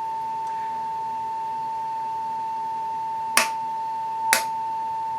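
Steady pure test tone from an audio generator, sounding through a loudspeaker whose field coil is being tested. Two sharp clicks about three and a half and four and a half seconds in.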